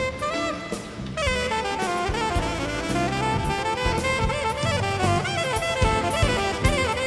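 Background jazz music: a saxophone playing a melody over drums and bass.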